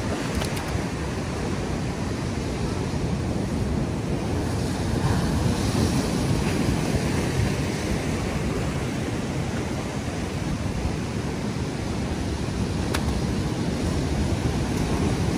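Ocean swell breaking and washing over a rocky shore platform: a steady, rushing surf that builds a little about five seconds in and again near the end. Wind is buffeting the microphone.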